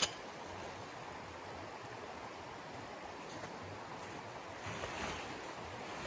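Steady rush of flowing water. A sharp click sounds right at the start, and about five seconds in, heavy tent fabric rustles as it is lifted and handled.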